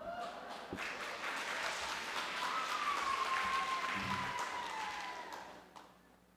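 Audience applauding, dying away about six seconds in, with a thin, slightly falling tone held above it in the middle.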